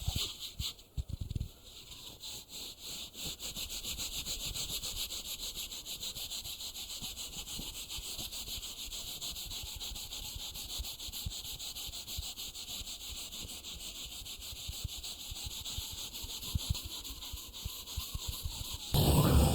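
Close-up ASMR ear-massage rubbing on the microphone: a steady, fine, scratchy rustle. Just before the end it gets louder and fuller.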